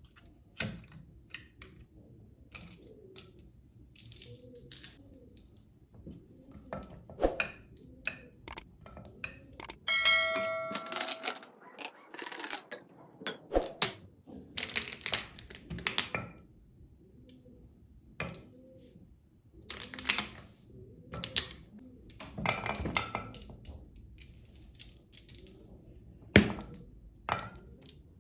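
Marbles rolling and clacking down a marble run track: a low rolling rumble with many irregular clicks and knocks, and a short ringing note about ten seconds in.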